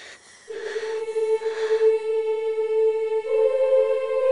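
Background music: a steady held note that comes in about half a second in and steps up slightly in pitch about three seconds in.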